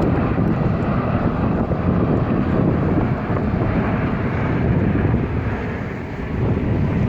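Aircraft engine noise from a flying display aircraft, a steady loud rush that eases slightly near the end, with wind buffeting the microphone.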